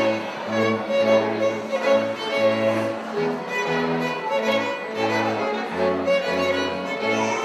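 String quartet playing: violins carrying the melody in held, bowed notes over the cello's low line.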